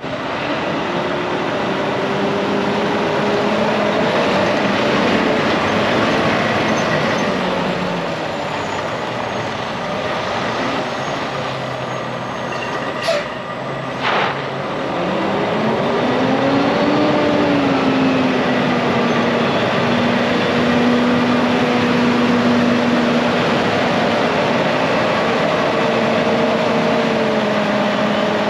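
Volvo D13 12.8-litre diesel in a day cab tractor running as the truck drives around, its engine note rising and falling several times as it accelerates and slows. Two short sharp sounds come about halfway through.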